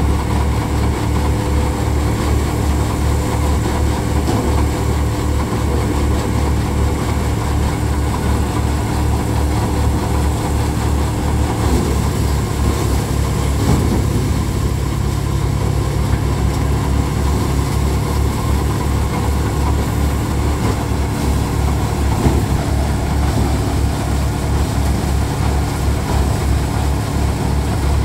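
Tractor diesel engine running steadily while driving a five-fan paddy thresher, a low pulsing rumble with a haze of machine noise over it. The tone shifts slightly about twelve seconds in.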